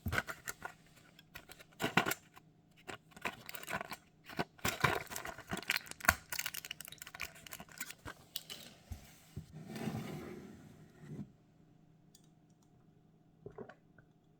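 Close handling noises: a busy run of clicks, crinkles and scrapes, with a denser rustling patch around ten seconds in. It dies away about eleven seconds in, leaving a few faint ticks.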